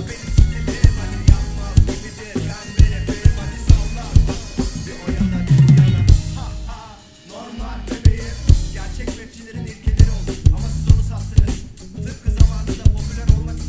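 Live drum kit played hard: a driving kick-and-snare groove, then a heavy tom fill about five seconds in that ends on a cymbal crash, left ringing out for a couple of seconds before the beat comes back in.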